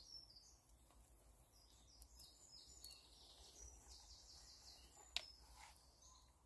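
Faint birdsong: quick, high chirping notes repeating throughout, with one sharp click about five seconds in.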